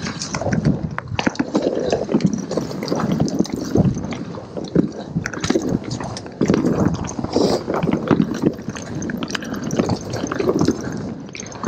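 Mountain bike riding down a dirt singletrack: tyres rolling over dirt and roots, with frequent irregular knocks and rattles from the bike as it goes over bumps.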